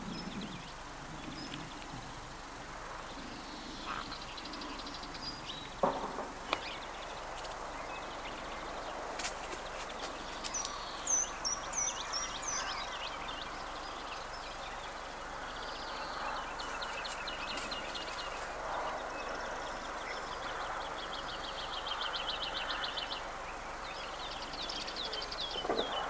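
Several wild birds singing and calling over a steady background hiss: short high chirps, fast repeated trills and a falling series of notes. Two sharp knocks come about six seconds in.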